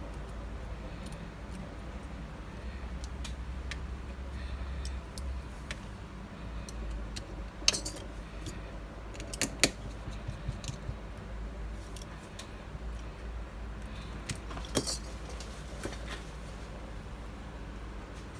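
Small clicks, taps and metallic clinks from hands working on an opened iPhone 7 Plus: handling the display assembly and its internal connectors, then closing the phone. There are a few sharper clicks about eight, nine and a half and fifteen seconds in, over a steady low hum.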